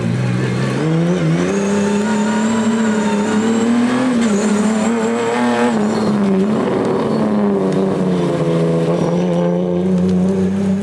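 Race car engine running hard at high revs on a hillclimb run. The pitch holds fairly level, with small rises and a brief dip about six seconds in.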